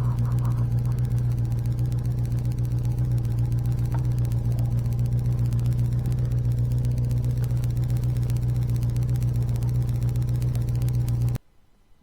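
Suzuki GSX250S Katana's inline-four engine running at a steady speed while riding, heard from the bike with an even, unchanging pitch. It cuts off suddenly near the end.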